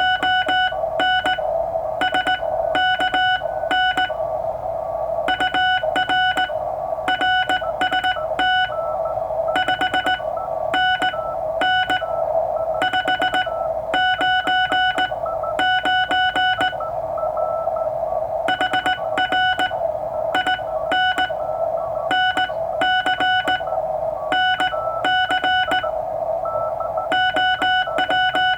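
Morse code from a Ten-Tec Century/21 CW transceiver: a single steady tone keyed on and off in dits and dahs, over the steady hiss of the receiver's noise.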